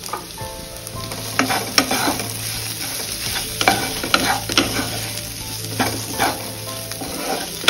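Spatula stirring and scraping spiced potatoes frying in a nonstick pan, with irregular scrapes every second or so.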